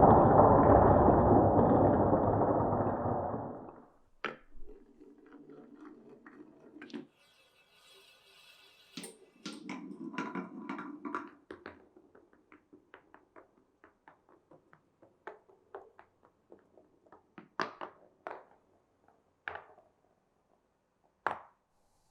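Marbles running through a marble run: a loud rolling rumble for the first few seconds that fades out, then two shorter stretches of rolling along the track with clacks, thinning to scattered clicks and taps.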